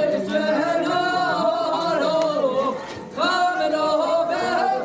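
A man singing long, held notes that waver in pitch, with a short break for breath about three seconds in.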